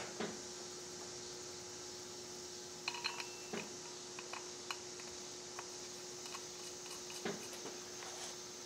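Faint, scattered metallic clicks and taps of brake-disc bolts being threaded by hand into a motorcycle wheel hub, with one short ringing click about three seconds in, over a steady low hum.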